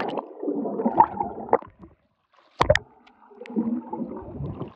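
Muffled underwater bubbling and gurgling picked up by a camera submerged in a swimming pool. It breaks off briefly about two seconds in and starts again with a sharp click.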